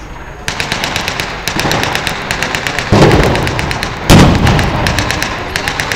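Blank gunfire in a staged street battle: rapid bursts of shots from about half a second in, with two heavy bangs about three and four seconds in, the second the loudest.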